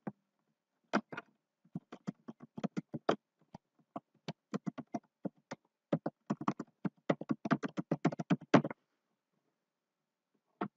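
Typing on a computer keyboard: a run of uneven key clicks lasting about eight seconds, then a pause and a couple more clicks right at the end.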